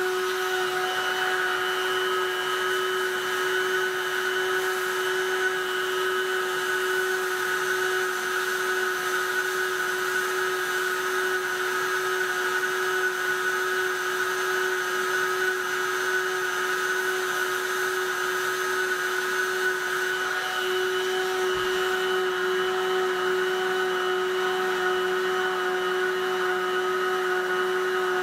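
Handheld heat gun running steadily: a constant fan whir with a steady whine over it.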